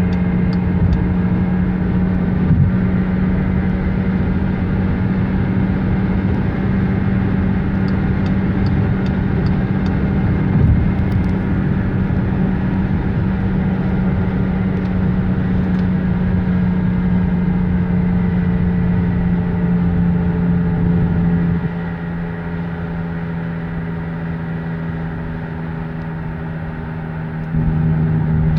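Loud steady drone from a moving Skoda Superb Mk2, a strong low hum over road noise. The owner reports that it does not change when the DSG gearbox is put in neutral and rules out tyres, engine and gearbox, suspecting a wheel bearing. The sound drops quieter about 21 seconds in and comes back loud near the end at a slightly lower pitch.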